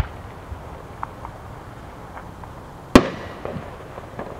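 Aerial firework shells going off: a sharp bang at the start, a couple of faint pops, then a louder bang about three seconds in that rings out with an echoing tail.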